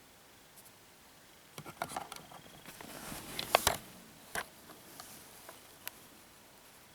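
Small plastic camcorder and its parts being handled: a quick run of clicks, taps and scrapes, loudest about halfway through, then a few single clicks.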